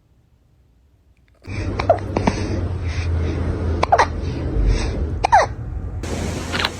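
A cat hiccuping: about four short, sharp hiccups spread over some four seconds, starting about a second and a half in, over a steady low hum.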